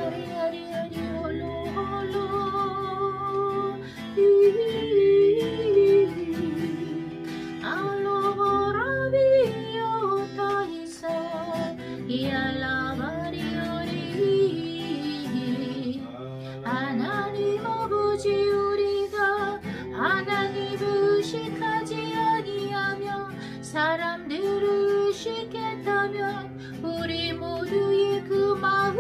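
Worship music: plucked guitar with a woman singing.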